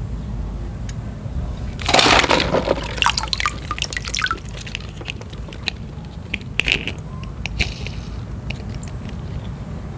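Water splashing and pouring off a plastic toy truck as it is lifted out of a basin of water and plastic balls, loudest about two seconds in, followed by drips and light plastic clicks, over a steady low hum.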